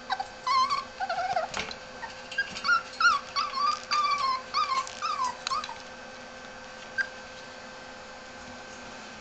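Italian Greyhound puppies yipping and whining in play: a rapid string of short, high-pitched cries that bend in pitch, stopping about six seconds in. A single sharp click follows about a second later.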